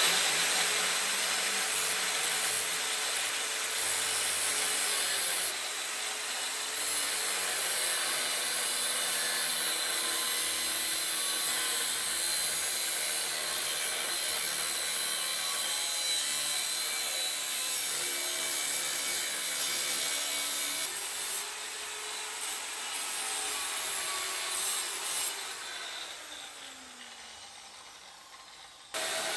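Saw cutting through steel box section: a steady rasping cut. Near the end it dies away with a falling tone, as the saw winds down.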